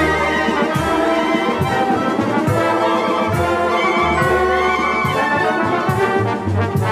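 Orchestral music with brass, held chords over a steady beat that falls a little faster than once a second.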